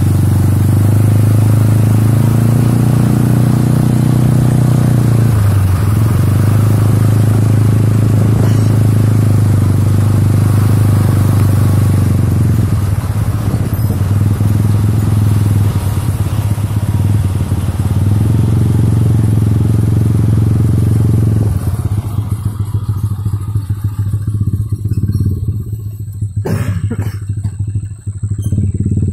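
Tractor diesel engine running steadily at constant speed. In the last quarter it quietens, and a few knocks and clatters come near the end.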